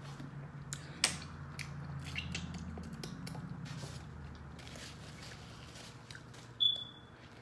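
Close-up mouth sounds of a person eating a seafood boil: chewing, with wet smacks and clicks scattered throughout, over a faint low hum. A short high-pitched squeak comes near the end.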